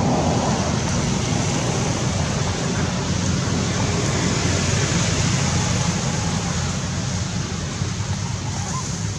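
Steady rushing noise with a strong, fluttering low rumble: wind buffeting the microphone outdoors.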